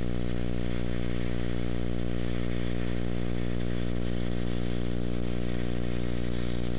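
Steady electrical hum with even overtones under the crackling hiss of a 7018 low-hydrogen stick-welding electrode arc burning in the overhead position.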